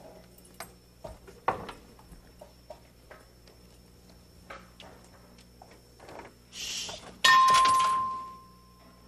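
Scattered clicks and knocks of keys and the car's body, then a short hiss and a loud bell-like ring, a single clear tone with overtones that fades away over about a second and a half: a comic bell sound effect as the car's trunk lid opens.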